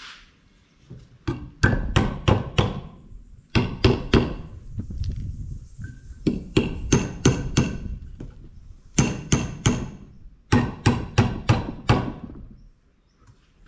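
Claw hammer driving finishing nails into wood: five runs of quick, ringing blows, three to six strikes each with short pauses between, stopping about a second before the end.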